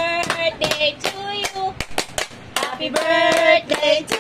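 A child singing, with hand claps keeping time at about three a second.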